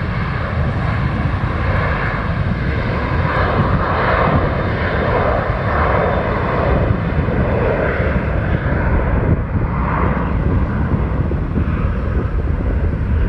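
Airbus A321 airliner's twin jet engines at takeoff power: a loud, steady jet noise as the aircraft rolls and climbs out, its pitch band slowly shifting.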